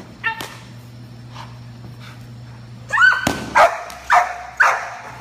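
Young giant Schnauzer barking: one short bark at the start, then a run of four loud barks in quick succession about three seconds in.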